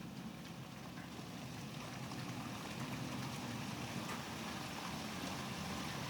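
Steady rain ambience with a low rumble underneath, slowly growing louder.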